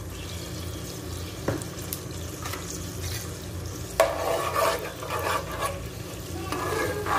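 A metal spoon stirs fennel seeds and green cardamom in hot ghee in a non-stick pot, scraping the pan in bursts from about four seconds in, over a faint sizzle. A single click comes about one and a half seconds in, and a low steady hum runs underneath.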